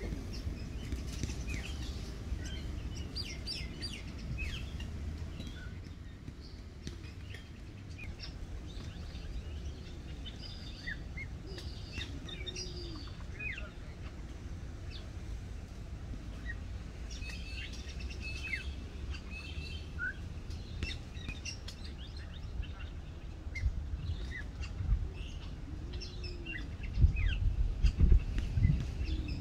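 Wild birds calling: many short, high chirps scattered throughout, with a few low, arched calls among them. A run of loud low thumps comes near the end.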